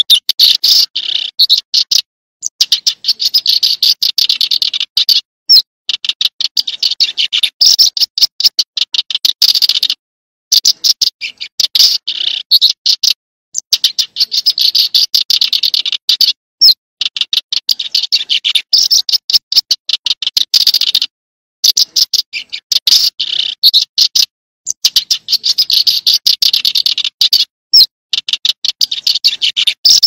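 Small songbird calling in fast runs of dry, chattering notes, high-pitched, in bouts of a few seconds. The bouts are broken by short silences that start and stop abruptly, as in a looped bird-call recording.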